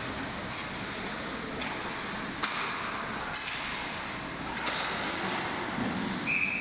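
Ice hockey play in an arena: sticks and puck clacking on the ice in sharp, scattered knocks over a steady rink hum. Near the end a referee's whistle blows one steady note.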